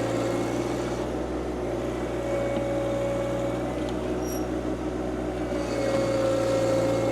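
John Deere 2025R compact tractor's three-cylinder diesel engine running steadily while working the backhoe, with a whine that comes and goes every few seconds.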